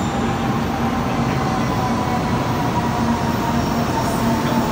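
Shinkansen bullet train pulling into the platform. Its cars rush past with a steady roar of air and wheels, and a faint electric motor whine sinks slowly in pitch as the train slows to a stop.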